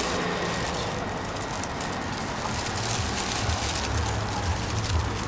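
Steady city street background noise with a low traffic rumble that grows stronger about three seconds in, and paper and plastic bags rustling as they are handled.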